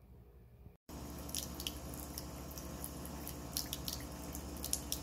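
Kitchen faucet running a thin stream into a sink, with a steady splashing hiss and irregular sharp drips and splashes. It starts suddenly about a second in, after a short quiet stretch.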